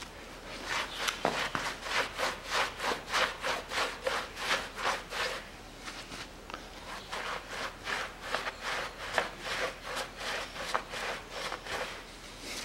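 Rag in a gloved hand scrubbing the combustion chambers of a Toyota Caldina 2.0 cylinder head in quick back-and-forth rubs, about three a second, wiping off carbon softened by a Dimexide soak. The scrubbing stops for about a second midway, then resumes.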